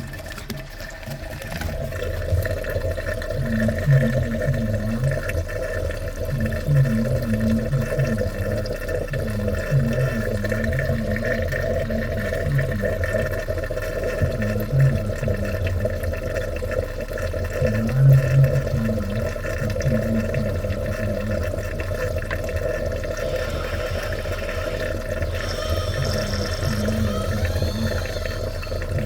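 Water running and draining down a freshly unclogged bathtub drain during a drain test, with an uneven low gurgling as it goes down the pipe.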